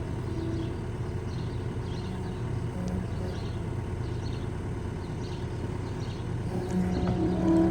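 Engine of a farm loader running steadily. A whining tone joins about seven seconds in, as the machine comes under load.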